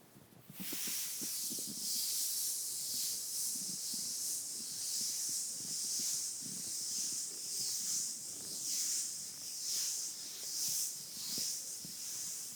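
Makeup brush bristles sweeping over the bare skin of a back, a steady soft hiss that swells and ebbs with each stroke. It starts suddenly about half a second in and fades out near the end.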